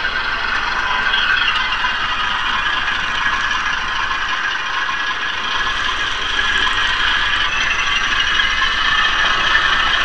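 HO-scale model train rolling along its track right under an onboard camera: steady mechanical running noise of wheels and gearing that does not let up.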